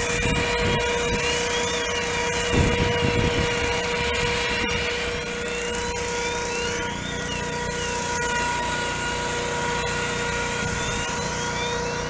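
Steady drone of engine-driven firefighting equipment, a constant whine at several fixed pitches, with fainter tones sweeping up and down above it every second or two. A brief low buffeting about two and a half seconds in.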